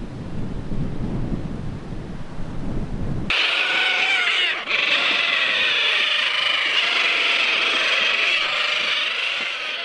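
Wind buffeting the microphone for about three seconds. After an abrupt cut comes a loud, dense crowd of birds calling at once, many high, wavering cries overlapping.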